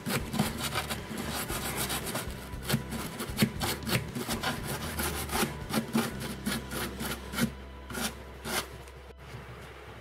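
Brush bristles scrubbing alcohol over a laptop motherboard's solder joints in quick, irregular strokes, cleaning the flux off a freshly soldered DC jack. The scrubbing stops near the end.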